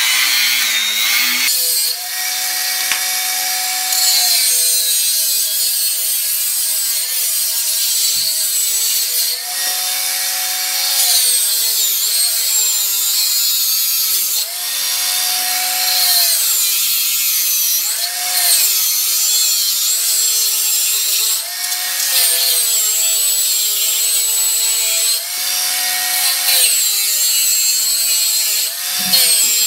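Ozito cordless angle grinder running with a cutting disc, slicing through a wireless router's plastic case and the metal parts inside. The motor's pitch sags each time the disc is pressed into the cut and recovers when the pressure eases, many times over, under a harsh grinding hiss.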